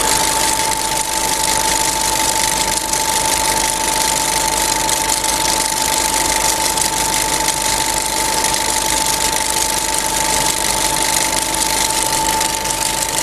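A steady, loud, machine-like drone of dense noise with one constant high whine running through it, like a motor running.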